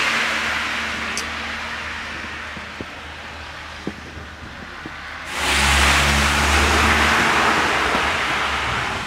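Cars passing on a snowy road, tyre hiss over a low engine hum: one fades away over the first few seconds, and another starts abruptly about five seconds in and eases off near the end.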